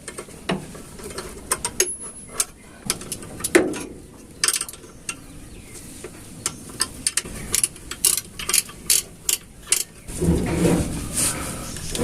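Scattered sharp metallic clicks and clinks of hand tools at work on a clutch assembly, with a quicker run of clicks in the last few seconds. Near the end comes a louder, rougher noise.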